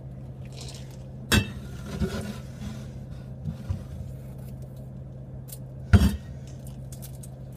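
Items being handled on refrigerator shelves: two sharp knocks, one about a second and a half in and a louder one near the end as a plastic bottle is taken out, with a few lighter clinks between. A steady low hum runs underneath.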